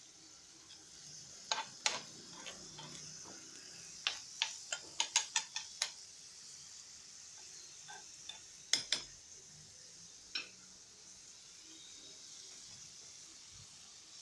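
Cutlets sizzling in a tagine over a butane burner, a steady hiss, with sharp clicks and taps of a utensil against the dish: two near two seconds in, a quick run of about eight between four and six seconds, then a pair near nine seconds and one more about a second later.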